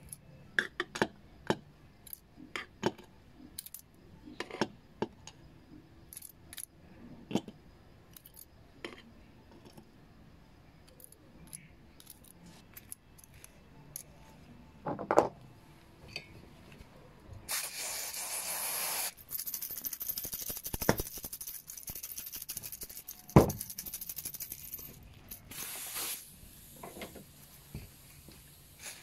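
Small steel screws clinking against a stainless mesh tea-strainer ball as they are dropped in with tweezers. Then comes a hiss of aerosol carb cleaner sprayed over the strainer for about a second and a half, a sharp metal click, and a second short spray burst.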